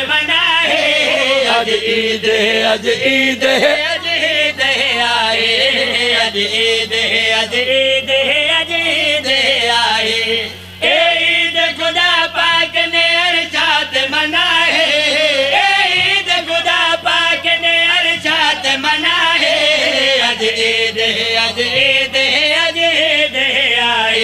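A man singing a devotional qasida in long, drawn-out melodic lines through a public-address system, with a short break about ten seconds in.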